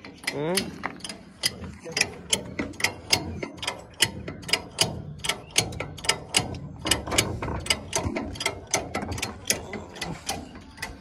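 Metal lifting jack being worked under a tractor trolley to raise it: a steady series of sharp metallic ratcheting clicks, about three a second.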